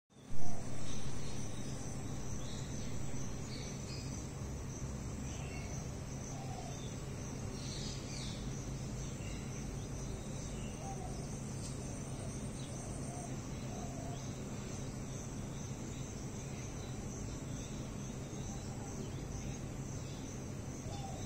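Insects trilling steadily in a high, continuous drone over a low steady hum, with scattered short bird chirps. A brief loud knock about half a second in is the loudest sound.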